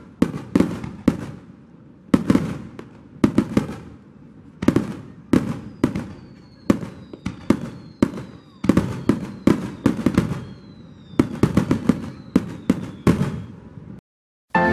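Aerial fireworks shells bursting in a rapid series of sharp bangs, several a second, with a few faint falling whistles partway through. The bangs stop abruptly near the end.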